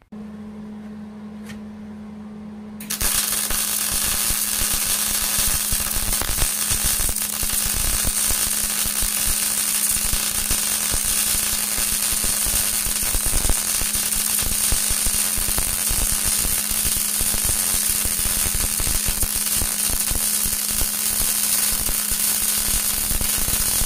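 Arc welding on steel plate: a loud, continuous crackle of the welding arc that starts about three seconds in, after a few seconds of quieter steady hum.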